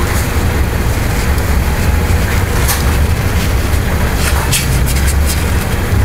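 Car engine idling, a steady low hum heard from inside the car, with a few brief crackles of a paper napkin being handled.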